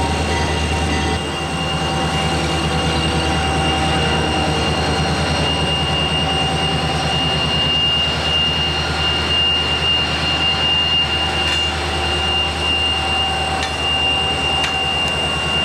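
Diesel road locomotives rolling slowly past at close range, their engines running with a deep rumble under a steady high whine.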